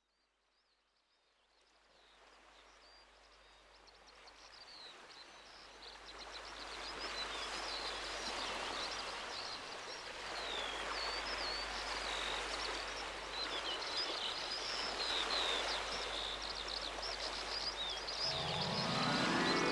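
Many birds chirping over a steady rushing noise, fading in slowly and growing louder. Near the end, mallet-like music begins with a rising run of notes.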